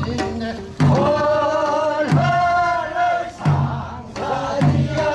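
Men's voices singing a Korean rice-paddy weeding work song (durae nonmaegi), in long held phrases with bending pitch.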